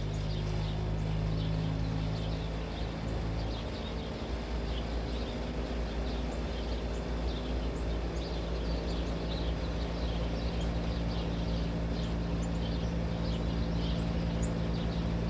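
Mr Cool inverter heat pump's outdoor unit running steadily in heating mode after a defrost cycle, its fan and compressor making an even hum with a few fixed tones. Short faint high chirps come and go throughout.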